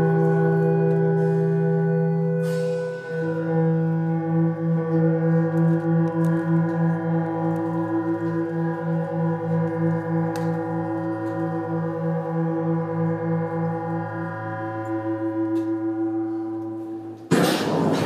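Live electronic drone music: layered sustained tones, with a low tone pulsing about twice a second through the middle. Near the end the tones break off abruptly into a loud burst of noise.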